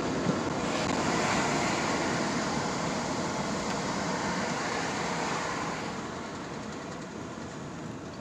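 A car going past with a broad rushing noise, loudest early on and fading away over the last few seconds.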